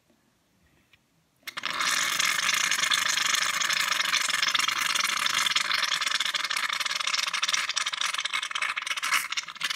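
Equate shave foam aerosol can dispensing foam: a steady, crackly hiss that starts suddenly about a second and a half in and keeps going.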